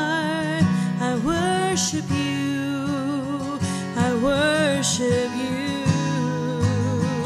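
A woman singing a slow worship song in long held notes with vibrato, accompanied by a strummed steel-string acoustic guitar.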